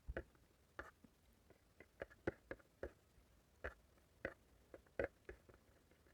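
Eating sounds from someone chewing egg curry and rice: a run of short, wet clicks and smacks at uneven spacing, about two or three a second.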